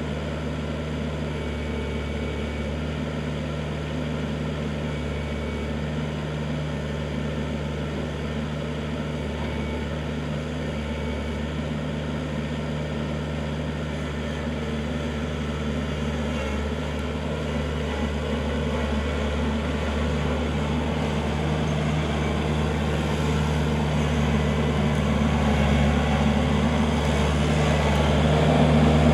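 Kubota L4400 tractor's four-cylinder diesel engine running steadily, growing gradually louder over the second half.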